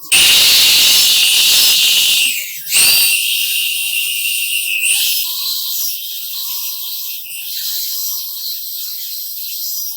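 A loud hiss that starts abruptly and breaks off about two and a half seconds in. After a short burst it goes on as a thinner, high-pitched hiss, with faint short tones coming and going.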